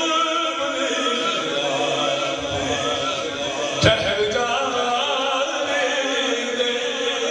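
A man's voice chanting a devotional kalam in long, wavering sung lines, amplified through a handheld microphone. A single sharp knock sounds about four seconds in.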